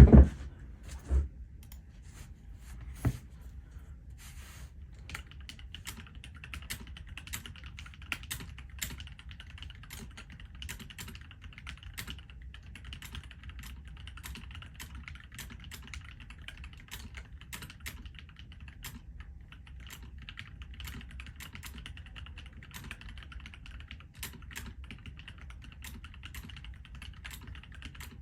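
Typing on an NK87 Entry Edition mechanical keyboard with EMT switches and GMK Hyperfuse keycaps: a steady, dense run of key clacks from about five seconds in. It is preceded by a few louder knocks in the first three seconds.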